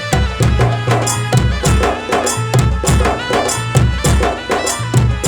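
Instrumental passage of a Hindi devotional bhajan: a sustained melody line over a steady, rhythmic drum beat with bass.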